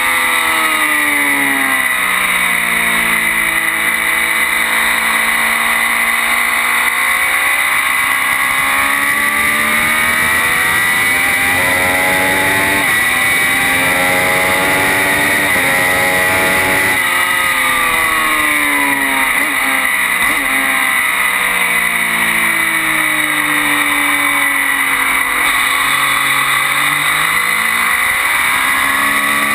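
Triumph Daytona 675's three-cylinder engine at racing speed, picked up close to the exhaust: revs fall as the bike slows for a corner, climb back out, and run up through a quick series of upshifts about halfway through, then fall again for the next corner and rise once more as it accelerates out.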